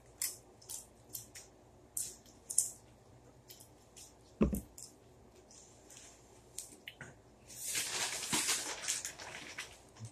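Plastic snack-chip bag crinkling as it is handled: short scattered crackles, a single thump about four seconds in, and a longer spell of rustling near the end.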